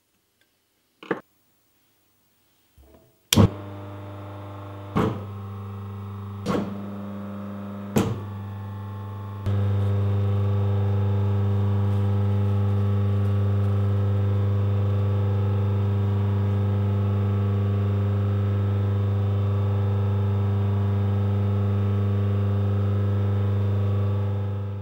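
Rebuilt Canadian General Electric single-phase motor, with new bearings and capacitor, running with a steady electrical hum after a loud click about three seconds in. Three more sharp clicks follow, and from about nine seconds in the hum is louder and steady until it fades out at the end.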